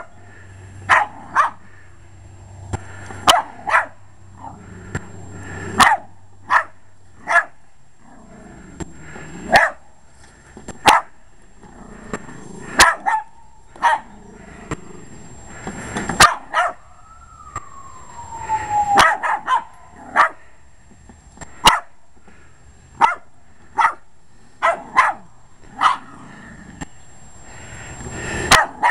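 Jack Russell terrier barking repeatedly in short, sharp barks at irregular intervals, some in quick pairs, with one drawn-out falling whine about two-thirds of the way through.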